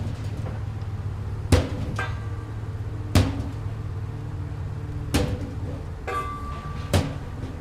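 Repair-shop ambience: about four sharp metallic knocks, nearly two seconds apart, like a hammer striking metal, with a few lighter clicks between, over a steady low machine hum. A short ringing tone sounds between the third and fourth knock.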